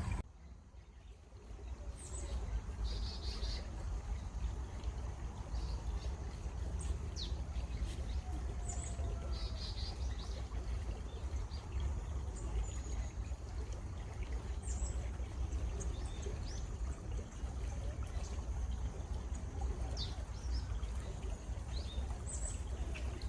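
Small birds chirping in short, scattered calls over the steady rush of running water, with a low rumble underneath.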